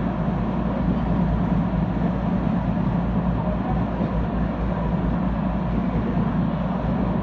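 Boat engine running steadily under way, a constant low drone, with the rushing hiss of water and wind over it.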